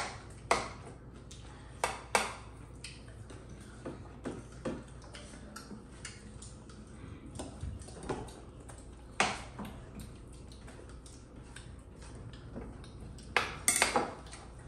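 Utensils clinking against dishes: a dozen or so sharp, irregularly spaced clinks, the loudest about nine seconds in and a cluster near the end.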